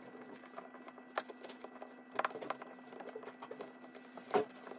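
Light clicks and taps of hands working at the plastic cover of an ADT alarm panel to take it off and reach the battery, with a few sharper clicks about a second, two seconds and four and a half seconds in.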